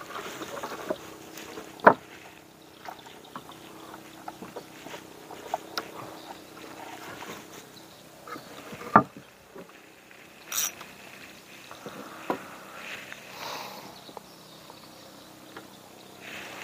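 Sharp knocks and lighter taps of gear and hands against a wooden boat's hull. Two loud knocks come about two seconds in and about nine seconds in, with scattered small clicks between, over a faint steady hum.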